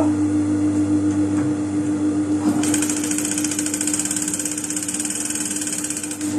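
Juki industrial sewing machine stitching in a fast, even run that starts about two and a half seconds in and stops just before the end, over a steady motor hum.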